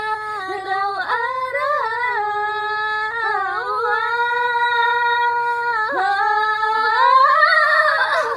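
Two women singing together a capella in a high voice, holding long drawn-out notes. Near the end the pitch climbs and the singing swells, then breaks off suddenly.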